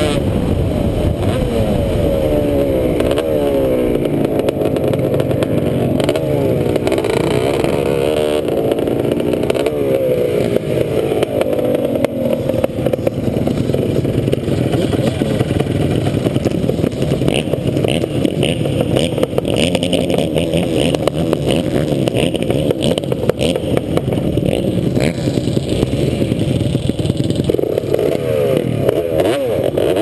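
A sport ATV's engine is running hard under the rider, its pitch rising and falling as it is revved through the first dozen seconds. Through the middle it runs more evenly, and the revving rises and falls again near the end.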